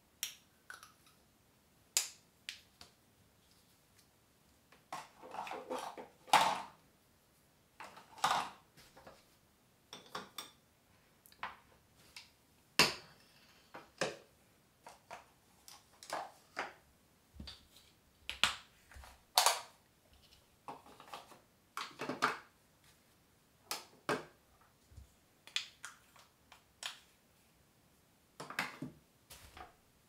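Irregular close-up clicks, taps and short rustles of small grooming items being handled and set down, one every second or so, with the sharpest knocks about six, thirteen and nineteen seconds in.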